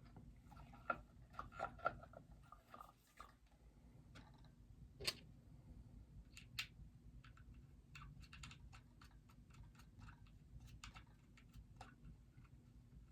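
Faint, scattered clicks and taps of a plastic bobblehead and its display base being handled and fitted together, with a sharper knock about five seconds in and another about a second and a half later.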